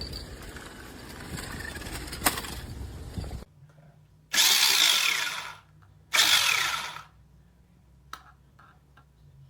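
Small electric drive motor and gearbox of a toy RC rock-crawler truck whirring in two short bursts about a second each, pitch dropping as each winds down. Before them, about three and a half seconds of rough rumbling noise with one sharp click, ending abruptly.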